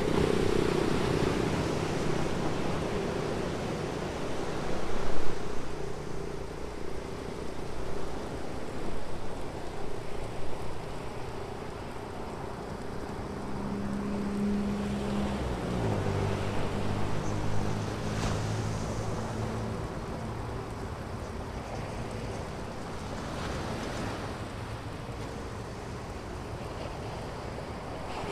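Ocean surf washing onto a sandy beach in a steady rush, louder in swells. Over it, motor traffic passes on the road, one engine's note dropping in pitch about halfway through as it goes by.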